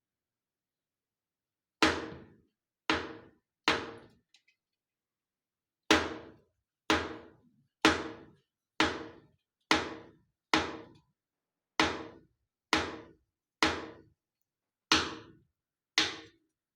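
A series of fourteen sharp knocks, about one a second with a short pause after the first three, each ringing briefly before dying away, with dead silence in between.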